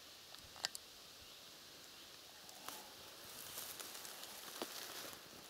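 Faint rustling in dry grass and leaves as the filmer moves close to a nest, with two light sharp clicks a little over half a second in. The rustling grows a little louder from about halfway through, with a few more clicks.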